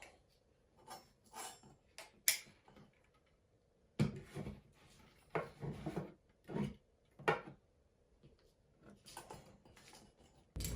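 Scattered clicks, knocks and rubbing from tools and materials being handled, with a sudden change in the background about four seconds in.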